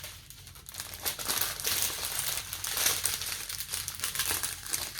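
Small plastic packets of diamond-painting drills crinkling and rustling as they are handled and sorted.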